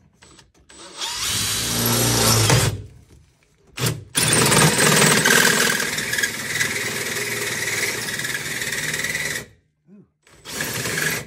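Cordless drill boring into a hollow metal roll-cage tube. It runs in three spells: a short one about a second in, a longer steady one of about five seconds from the middle, and another starting just before the end.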